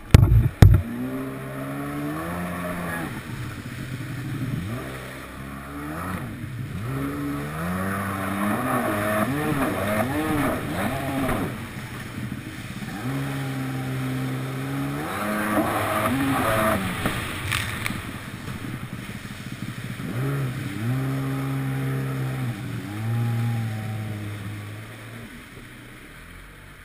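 Kawasaki 750SX stand-up jet ski's two-stroke twin engine revving up and down again and again, with water spray hissing off the hull. There are two sharp knocks just under a second in, and the engine eases off near the end.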